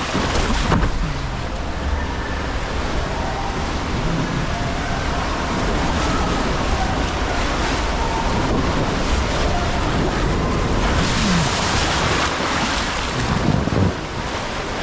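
Rushing, splashing water of a water slide channel, with wind buffeting the microphone as a low rumble; the water hiss grows stronger about eleven seconds in.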